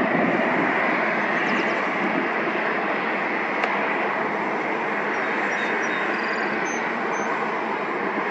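Boeing 767-200 climbing out after takeoff: the steady jet roar of its two turbofan engines, slowly fading as the aircraft recedes.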